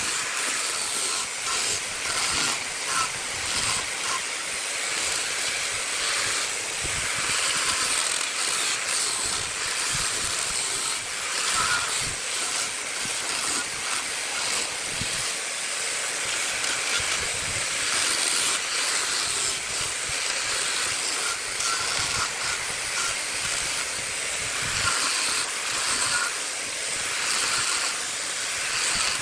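Jackfruit wood spinning on a woodturning lathe as a tool or abrasive is worked against it, giving a steady hiss that surges slightly in level.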